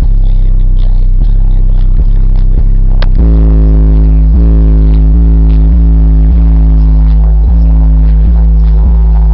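Loud, bass-heavy music with a steady beat; about three seconds in, a deeper, louder bass line comes in.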